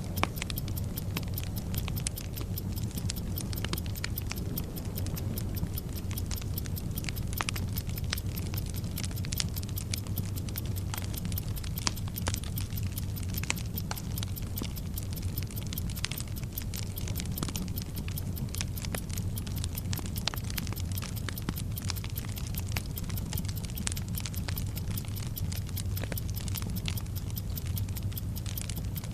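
Bomb-timer sound effect: a clock ticking at a steady fast rate over a burning fuse's continuous hissing crackle, with irregular sharp pops.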